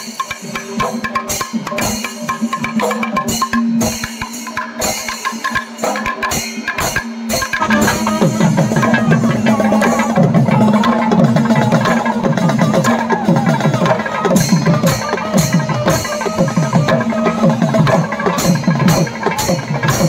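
Kerala temple-festival percussion ensemble: rapid, rhythmic drum strokes over a steady held tone. About eight seconds in, the drumming grows louder and fuller.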